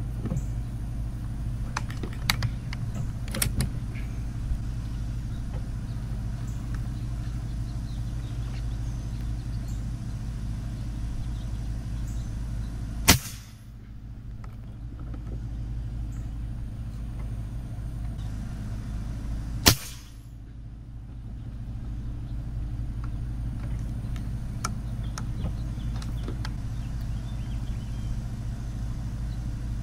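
Two shots from a regulated AEA Challenger .357 PCP air rifle, about six and a half seconds apart, each a single sharp report, over a steady low rumble. A few light clicks come in the first few seconds.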